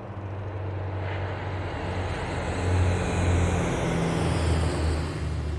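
Airplane engine droning steadily, growing louder over the first few seconds.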